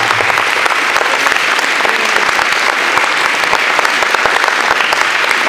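Wedding guests applauding: many hands clapping in a dense, steady patter.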